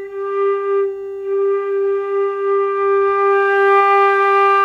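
Transverse flute playing G, first in short notes and then one long held note that swells steadily louder and brighter in a crescendo, with more breath noise as it grows. Under it runs a steady reference tone on the same G from a tuner.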